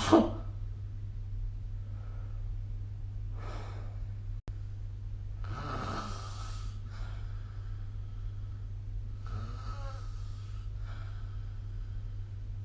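A sleeping person snoring: a loud, brief burst right at the start, then several snoring breaths a few seconds apart, some with a buzzing tone, over a steady low hum.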